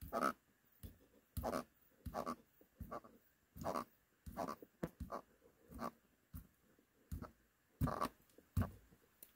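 Korean bullhead catfish croaking while held in forceps: a string of short, irregular rasping croaks, about two a second, the stridulation made by grinding its pectoral fin spines.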